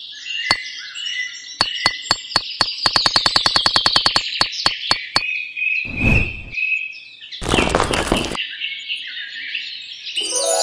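Birdsong ambience with steady chirping, broken by a fast run of sharp clicks, about ten a second, in the first half. A short whoosh comes about six seconds in and a longer rush of noise about a second later, and music begins near the end.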